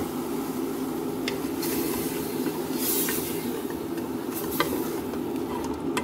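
Chicken pieces sizzling in tomato-spice paste in an aluminium pressure-cooker pot on a gas stove, a steady hiss, with a few light taps of a wooden spatula against the pot.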